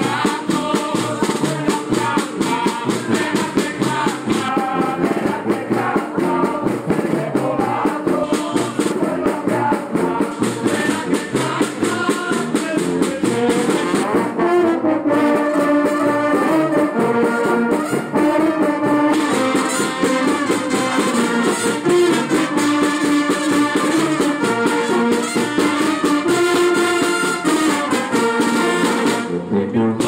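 Small brass band of tubas, euphoniums and a trombone playing a lively tune together, with low brass carrying the bass line and a fast, even percussion beat underneath.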